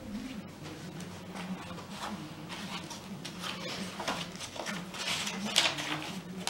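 Paper and card rustling as the pages of a handmade paper journal are opened and turned by hand, in a run of soft shuffles, the loudest about five and a half seconds in. A faint low wavering tone runs underneath.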